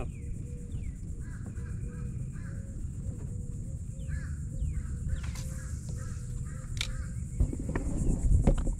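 Birds calling, a string of short crow-like calls over a steady high buzz and a low rumble, with a few sharp clicks near the end.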